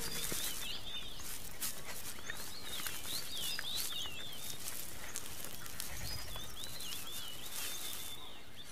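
Quick high chirps in three short clusters over a faint steady rustle and hiss, with scattered light ticks.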